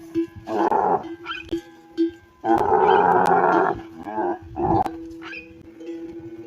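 Camel growling roars in three loud bursts, the longest lasting over a second.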